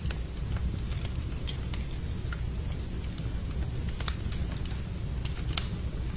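Wood fire burning in a fireplace: a steady low rumble of flames with irregular sharp crackles and pops from the burning logs, one louder pop about five and a half seconds in.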